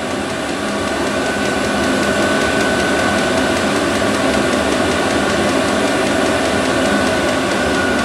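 Vevor 5 kW diesel air heater running at high output before it drops to its regular run cycle: a steady blower-and-burner noise with a steady whine, getting slightly louder over the first couple of seconds, and a faint regular ticking.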